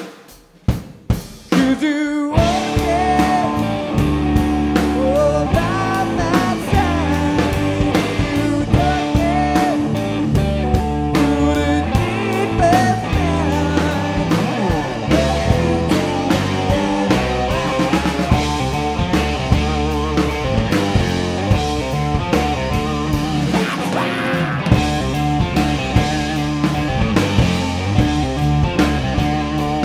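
Blues-rock power trio playing an instrumental passage on electric guitar, bass guitar and drum kit. After a brief near-silent break at the very start and a few lone hits, the full band comes back in about two seconds in. The guitar plays a lead line with bent notes over a steady drum beat and bass.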